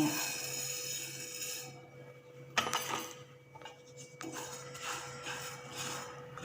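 Whole coriander seeds in a dry pan being dry-roasted and stirred with a spatula: a dry rustling and scraping, with one sharp knock about two and a half seconds in.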